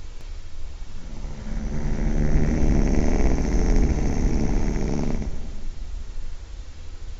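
A person snoring, really loud: one long, rough, fluttering snore about four seconds long starts a second in, then gives way to quieter breathing.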